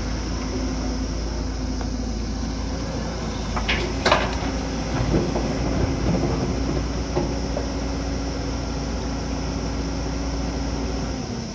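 Heavy diesel construction machine running steadily with a deep, even engine hum. Sharp metal clanks come about four seconds in, followed by a few lighter knocks. The engine sound cuts off just before the end.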